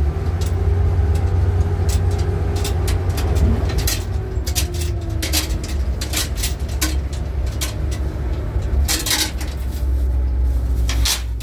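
A motor vehicle's engine running with a steady low rumble, with irregular sharp clicks and knocks over it.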